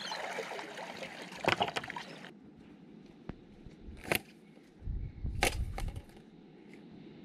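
Shallow water sloshing and splashing around a spearfisher wading out of the water with his float. About two seconds in it cuts to quieter outdoor background with a few sharp knocks and a brief low rumble.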